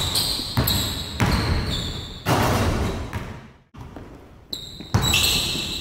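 Basketball sneakers squeaking and scuffing on a hardwood gym floor in quick bursts as two players lunge and shuffle, with a basketball bouncing. There are several short squeaks and a brief lull a little before the end.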